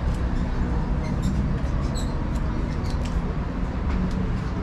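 Steady low rumble of city street traffic, with faint, irregular high-pitched clicks and chirps scattered over it.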